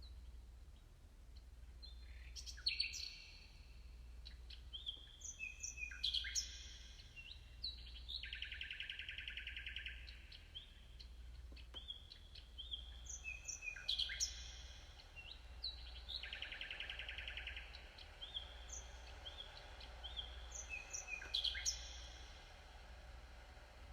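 Birdsong chirps, glides and buzzy trills over a low pulsing hum, played by the Sound of Soul device as music generated from a person's heartbeat. The same phrase of chirps comes round about every eight seconds, and soft held tones join in about halfway.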